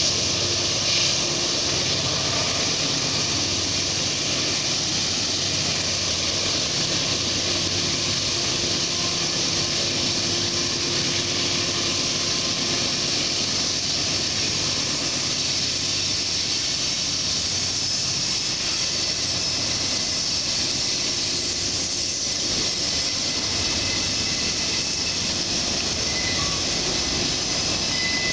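Norfolk Southern freight train passing close by on an upgrade: the diesel locomotives' engines running under load as the last units go by, then the steady noise of freight cars rolling past.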